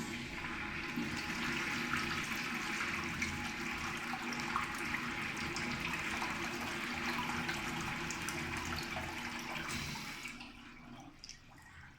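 INAX AWU-802AM sensor urinal flushing: water rushes into the bowl for about ten seconds, then tapers off. A steady low hum runs under the rush, and this unit is one the uploader says makes an odd, abnormal sound.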